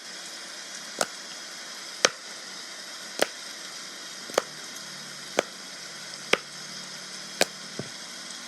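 Silicone pop-it fidget bubbles being pushed through one at a time, a sharp click about once a second, with a steady hiss underneath.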